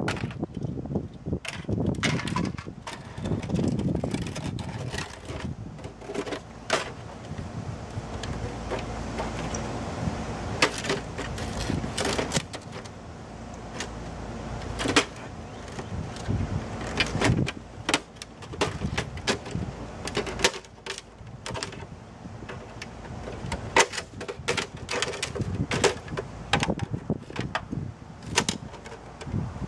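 Plastic housing and parts of an HP inkjet printer being pried, snapped and pulled apart by hand: irregular clicks, cracks and rattles, with a low rumble of handling in the first few seconds.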